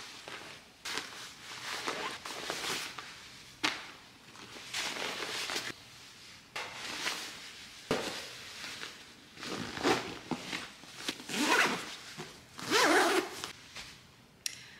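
Backpack zippers being pulled open and shut, with the nylon bag rustling as it is packed: a series of quick zips and swishes, the loudest near the end.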